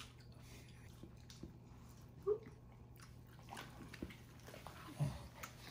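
Faint wet chewing and mouth sounds of mango being eaten, with a few small clicks and one short, louder sound a little over two seconds in.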